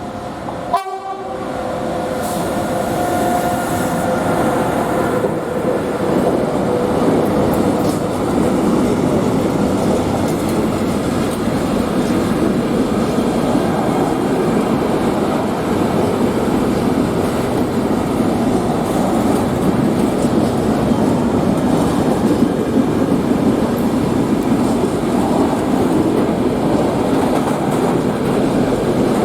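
A train passing close by: a loud, steady rumble of wheels on rails that builds over the first few seconds and carries on throughout. Over the first few seconds a train horn sounds a held tone.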